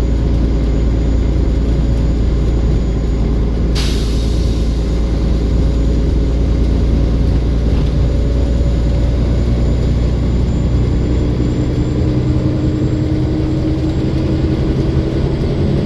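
Olympian double-decker bus engine running under load, with a thin steady turbo whine above the engine note. A sharp air hiss about four seconds in, and the engine note rises near the end.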